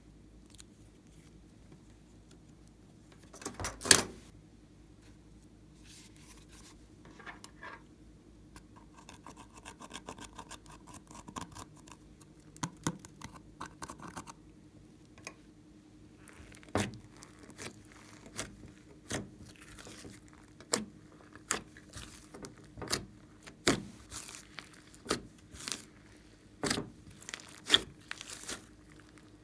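Slime being squeezed and kneaded by hand: a loud crackle about four seconds in, soft sticky crackles, then sharp pops about once a second during the second half.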